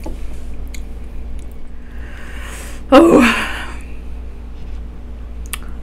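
A woman draws an audible breath and lets out a short voiced sigh falling in pitch, about three seconds in. A faint click of cutlery follows near the end.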